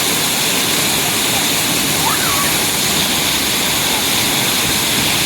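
Waterfall rushing: a steady, loud wash of falling water with no change in level. A faint voice or call rises and falls briefly about two seconds in.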